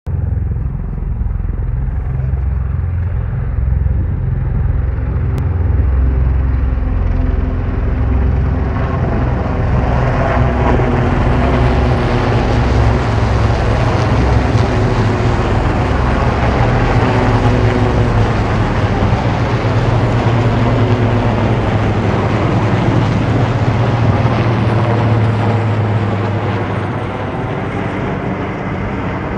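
A formation of about nine RAF Puma helicopters flying over, with the low beat of their rotors throughout. Rotor and turbine noise builds about ten seconds in, is loudest as they pass overhead, and eases near the end.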